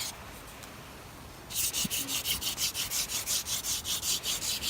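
Wooden hand-drill spindle spun between the palms in a hearth board's notch: a rhythmic rubbing rasp, about three to four strokes a second, that starts after a quieter second and a half. The friction is grinding hot wood dust into the notch to build an ember, with smoke already rising.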